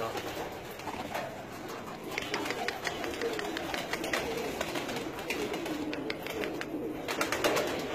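A flock of domestic pigeons cooing, with many short clicks and taps mixed in.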